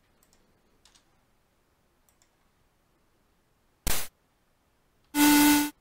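A few faint computer clicks, then a brief burst of hiss about four seconds in. About five seconds in, a note from a home-made software synthesizer starts: a square-wave tone buried in loud white noise, meant as a harmonica voice. The excess noise and DC offset come from a coding slip in the mix.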